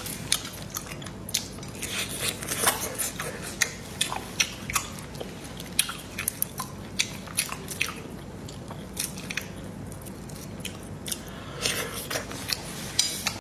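Marinated raw shrimp being peeled by hand: shells cracking and snapping in many sharp, irregular clicks, with wet squishing in between.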